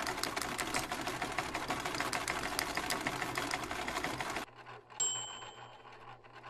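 Embroidery machine stitching at speed, a fast dense clatter of the needle that stops abruptly about four and a half seconds in. A steady high beep follows for about a second over a faint low hum.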